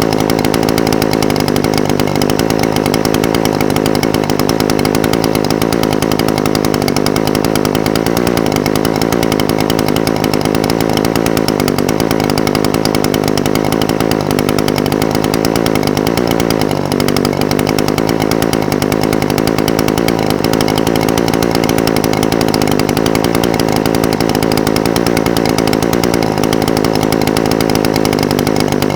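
Echo SRM-420TES brush cutter's two-stroke engine idling steadily, its pitch wavering slightly, with a brief dip about seventeen seconds in.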